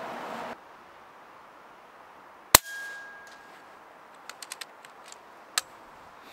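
A single shot from a 6.35 mm PCP air rifle fitted with a moderator: one sharp crack about two and a half seconds in, with a short ringing tail. A quick run of light clicks follows about two seconds later.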